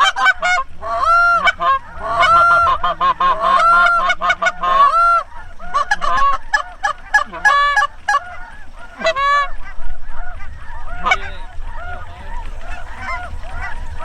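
Goose honking: many rapid, high-pitched honks and clucks in quick succession, loudest and densest in the first half.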